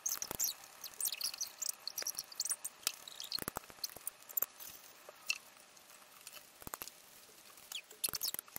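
Knife and fork clicking and scraping against a ceramic plate while someone eats salad, with soft chewing sounds; small irregular clicks, some close together.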